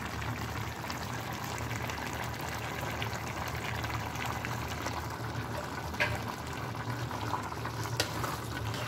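Tofu, mushroom and bamboo shoot braise simmering in its sauce, bubbling steadily over a low steady hum, with small sharp clicks about six and eight seconds in.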